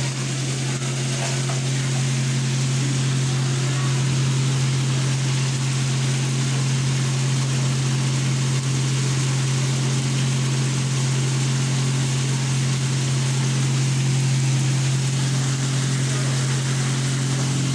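A steady low hum with a constant hiss over it, unchanging throughout.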